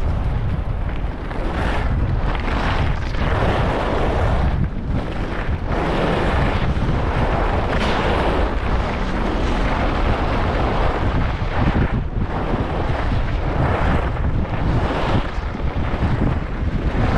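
Wind buffeting a GoPro Hero11's microphone during a fast ski descent, a heavy low rumble. Over it runs the rasp of skis carving and scraping on packed snow, swelling and easing with each turn every second or two.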